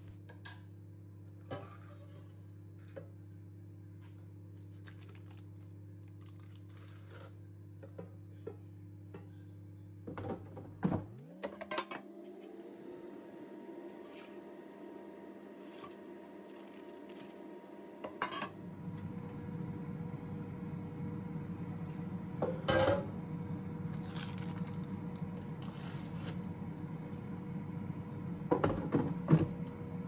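Steady electric hum of a running kitchen appliance. About a third of the way in it cuts out and a new hum rises in pitch and settles, growing fuller from about 18 seconds. Occasional clinks and knocks of dishes and an air fryer drawer being handled as fish pieces go back in.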